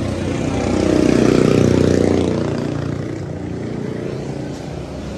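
A motor vehicle's engine passing close by, swelling loudest about a second in and then fading away.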